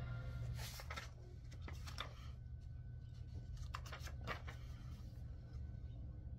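Sheet music pages being handled and turned: a few short, faint paper rustles.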